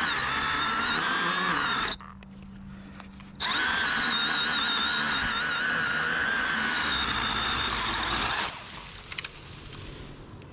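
Two-stroke chainsaw running at full throttle, cutting. It drops to idle for about a second and a half about two seconds in, revs back up, and falls back to idle near the end. Its chain is said to be getting dull.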